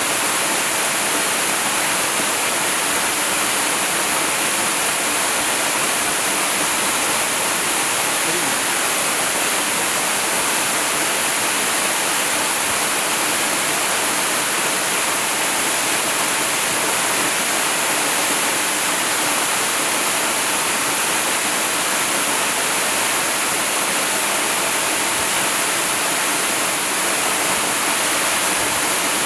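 Waterfall: a steady, unbroken rush of falling water, heaviest in its high hiss.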